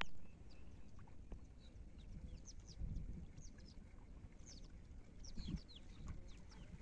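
Small birds chirping: many short, high calls that sweep downward in pitch, repeated in quick bursts throughout, over a low outdoor rumble.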